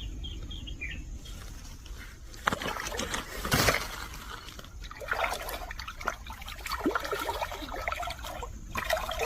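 Water splashing and trickling in irregular bursts, with one louder burst about three and a half seconds in.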